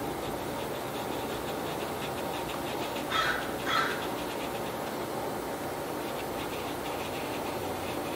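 Water brush scratching softly over textured watercolor paper in quick, repeated strokes, over a steady hiss. A little past three seconds in, two short animal calls sound about half a second apart.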